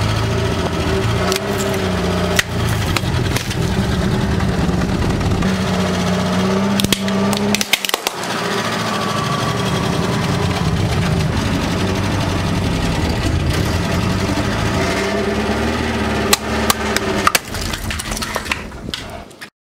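A car's engine runs at low speed, its pitch slowly rising and falling, as the tyre rolls over and crushes objects on a concrete path: first a polystyrene float, then brittle pink plastic. Several sharp cracks and crunches break through, bunched together about two-fifths of the way in and again near the end.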